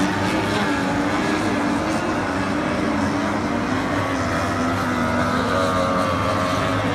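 Racing 50 hp outboard engines on tunnel hull powerboats running flat out, several engines at once, a steady whine whose pitch drifts up and down as the boats race.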